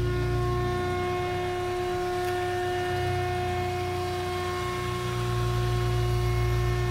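Air-raid siren sounding one steady, unbroken tone, without rising or falling, over a low rumble. In Serbian this is an air-danger warning siren.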